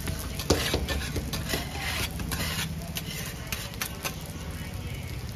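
A steady low engine hum, with scattered light clicks and taps of a cardboard food box being folded shut.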